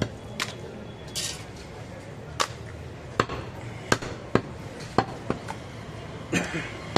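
Butcher's cleaver striking a wooden log chopping block while cutting goat meat: sharp, uneven knocks, about nine in all, with a brief scraping hiss a little after the first second.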